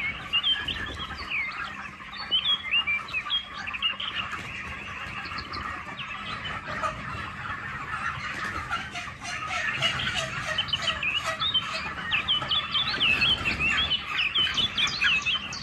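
A shed full of month-old broiler chickens peeping and cheeping: many short, high chirps over the steady murmur of the flock. The calls grow busier and a little louder in the last few seconds, as birds scatter.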